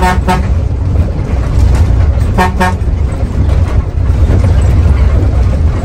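Vehicle horn tooting in short beeps: a couple right at the start and another about two and a half seconds in. Underneath runs the steady low rumble of the Mercedes-Benz OH 1521 bus under way.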